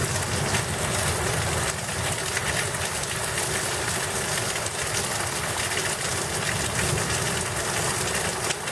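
Heavy rain pouring down in a thunderstorm, a steady hiss of dense patter.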